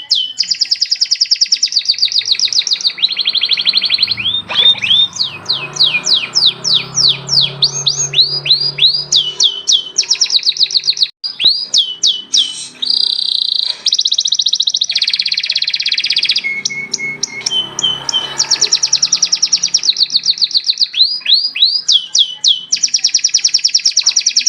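Domestic canary singing a long song of rapid trills, each phrase a fast run of repeated downward-sweeping notes, changing from one trill type to the next with a brief break about eleven seconds in.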